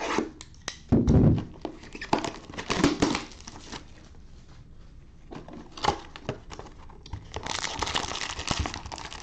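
Plastic wrap torn and crumpled off a cardboard trading-card box, with a thump about a second in. Near the end, wrapped card packs rustle and crinkle as they are pulled out of the box.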